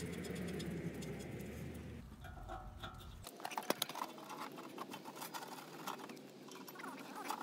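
Light, scattered metal clicks and scrapes as a C-frame ball joint press is fitted over the lower ball joint on the steering knuckle. A steady low rumble runs under the first two seconds.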